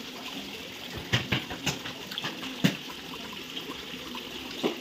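Water pouring from an inlet pipe into a concrete fish pond: a steady splashing trickle, with several sharper plops and drips scattered through, the loudest about a second in and near the three-second mark.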